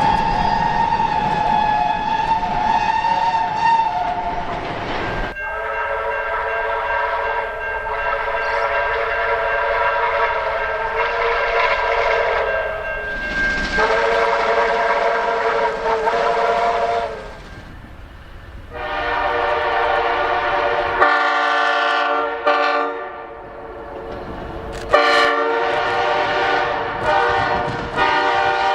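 Train horns sounding one after another, about five separate long blasts, each a steady multi-note chord, with abrupt changes in pitch and tone between them. Rumble and wheel noise of moving trains lie underneath.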